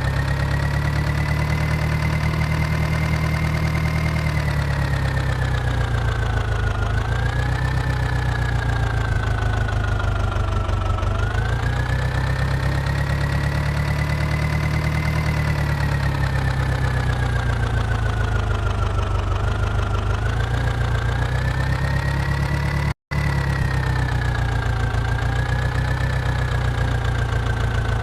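A motor running steadily, with a low hum and a higher whine that slowly rises and falls in pitch. It drops out for a moment near the end.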